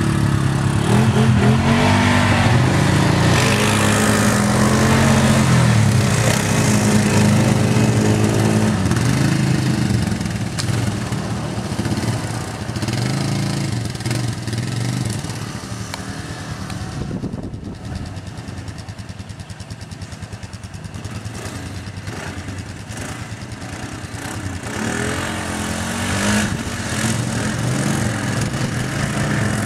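ATV engine running and revving, its pitch rising and falling with the throttle. It drops back to a lower level about halfway through and builds up again near the end.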